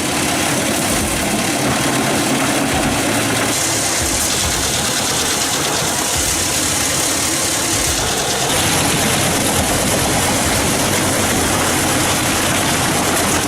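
Pezzolato PTH 1200 wood chipper running loud and steady, its engine and rotor chipping wood. A stronger high hiss comes in at about three and a half seconds and eases off at about eight and a half.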